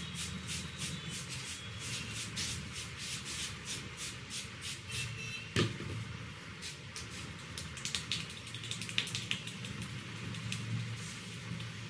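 Hands rubbing and patting a head of hair and scalp in quick repeated strokes during a head massage, with one sharp snap about halfway through, over a steady low hum.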